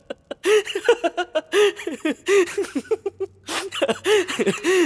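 A man laughing hard, in rapid ha-ha pulses of about four or five a second. The laughter comes in two long runs with a short lull between them, about two seconds in.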